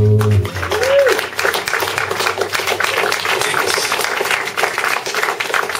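Small audience clapping at the end of an acoustic song, taking over as the final held guitar chord and sung note cut off about half a second in. A short rising-then-falling tone sounds about a second in.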